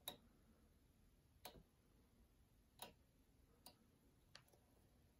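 Near silence broken by five faint, irregularly spaced ticks: small knocks of a thread bobbin and fingers against a fly-tying vise while thread is wrapped at the hook.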